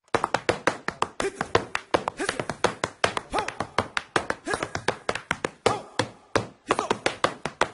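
Hands clapping in a quick, steady rhythm, with voices calling and whooping over the claps; the clapping breaks off briefly about six seconds in.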